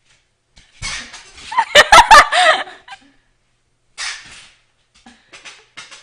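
A pet dog vocalizing excitedly, worked up by a squeaky toy squeaker, with a loud cluster of barks about two seconds in and a person laughing.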